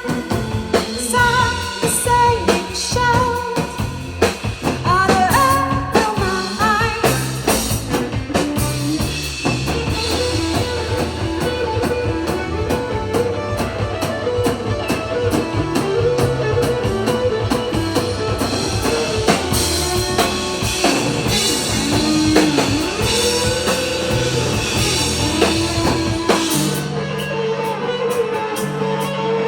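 Rock band playing a song: a singer over drum kit and guitar. Near the end the drums drop out, leaving the guitar.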